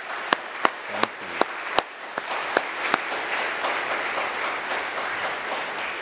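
Congregation applauding in a church sanctuary, with sharp claps from one person close to the microphone about three times a second during the first three seconds. The applause thins out near the end.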